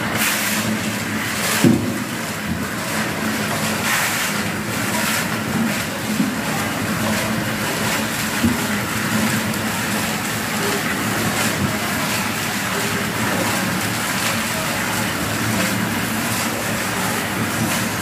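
An engine running steadily, with scattered knocks and clatter from construction work over it.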